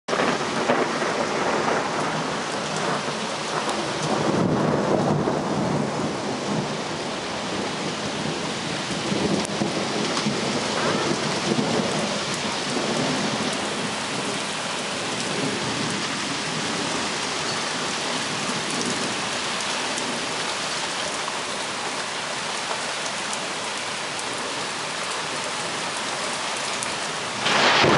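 Heavy rain falling hard and steadily, with thunder rumbling through it, most strongly about four seconds in and again around ten seconds in. Just before the end the whole sound jumps sharply louder.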